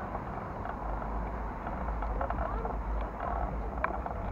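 Outdoor city-square ambience: people talking at a distance over a steady low rumble of street traffic, with a couple of short knocks near the end.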